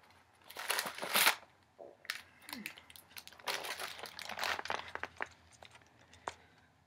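Cardboard fruit-bar box and its packaging crinkling and rustling as they are handled, loudest about a second in, then lighter scattered crackles.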